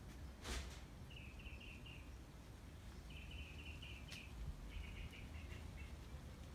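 A hummingbird giving three short bursts of rapid, buzzy, stuttering chatter, each about a second long and spaced a second or so apart. A brief whoosh comes about half a second in, with a faint click near the middle.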